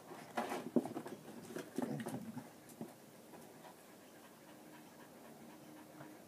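A dog panting in short, irregular bursts during the first three seconds, then more quietly.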